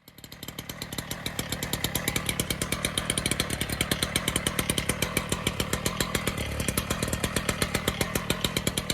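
Hydraulic breaker on a Bobcat T770 track loader hammering concrete, a rapid even pounding of about ten blows a second over the loader's steady engine.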